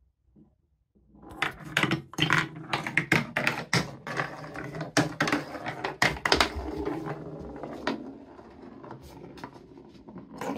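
Wooden ball rolling down a TrixTrack wooden marble run, starting about a second in: a continuous rolling rumble with many sharp clicks and knocks as it runs over track joints, curves and wave-slope pieces.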